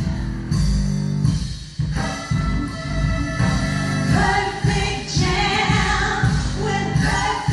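A woman singing into a handheld microphone over a pop backing track with a steady beat. From about four seconds in, fuller layered vocal harmonies join.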